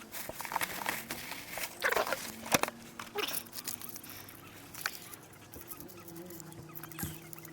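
Small clicks, taps and scrapes of hands-on food preparation, such as a knife and ingredients being handled, busiest in the first three seconds. A faint steady hum comes in about five and a half seconds in.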